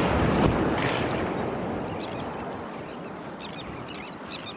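Ocean surf washing in around the wader, a wave rushing loudest at the start and then fading away as it recedes.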